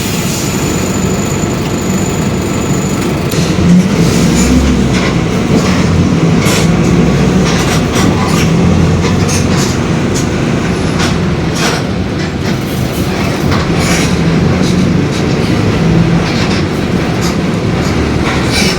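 Mercedes-Benz OF-1721 BlueTec 5 city bus under way: a steady low drivetrain rumble with frequent rattles and clicks over it. The rumble carries the differential growl ("diferencial roncando") that the title points out.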